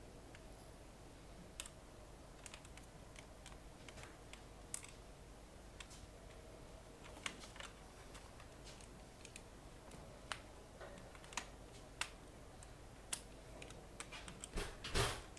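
Sparse, irregular light clicks and taps of a screwdriver, small screws and plastic parts being handled on a partly disassembled ThinkPad T500 laptop, with a louder short clatter about a second before the end.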